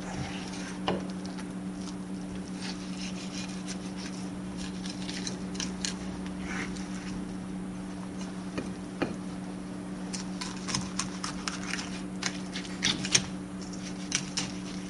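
Kitchen knife cutting a Japanese sea bass fillet away along the backbone on a plastic cutting board: a run of short clicks and scrapes as the blade passes over the bones, thickest in the last few seconds. A steady low hum runs underneath.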